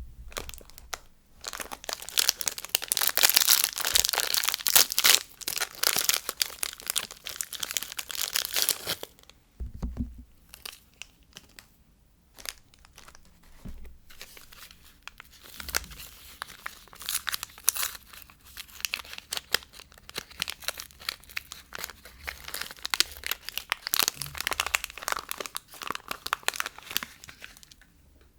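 Soap packaging being torn open and crinkled by hand, in two long bursts of dense crackling with a quieter pause between them. A soft low bump comes about ten seconds in.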